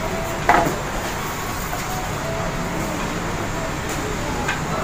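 Steady background din of a busy store interior, with one short, sharp sound about half a second in.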